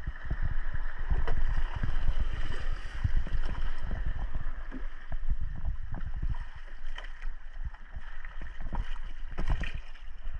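Sea water splashing and sloshing close around a spearfisher finning at the surface, with many irregular low knocks.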